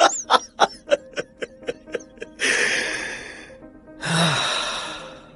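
A man's laugh trailing off in short pulses that come quicker and fainter, then two long breathy swells, over quiet dramatic music.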